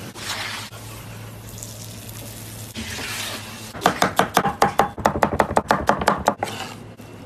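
Knife chopping vegetables on a plastic cutting board: a fast run of sharp, even strokes, about eight a second, starting about four seconds in and lasting some two and a half seconds.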